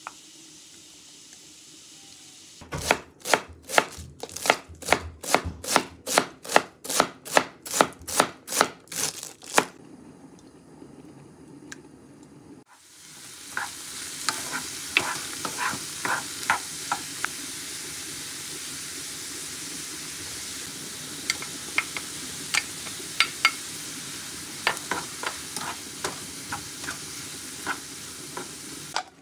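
A knife chopping on a cutting board, about three strokes a second, for several seconds. After a short pause, diced celery sizzles steadily in a frying pan, with small scrapes and taps as a wooden spatula stirs it.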